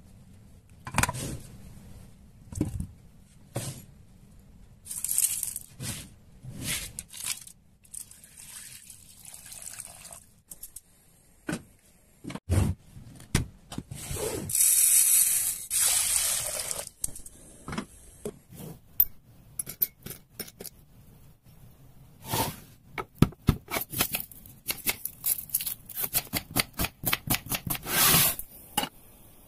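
Kitchen prep sounds: scattered knocks and handling noises, a few seconds of running water about halfway through, then a knife slicing onion on a wooden cutting board in quick regular chops near the end.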